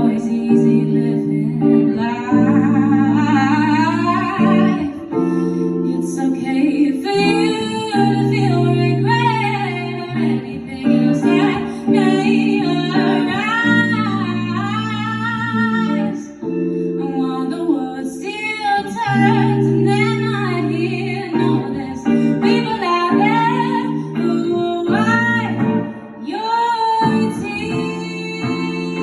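A woman singing with guitar accompaniment, her voice gliding and wavering through long held notes over sustained guitar chords.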